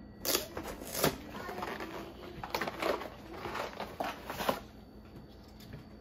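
Cardboard box of single-serve guacamole cups being handled and opened: packaging rustling and crackling, with a few sharp handling noises in the first half and quieter rustle near the end.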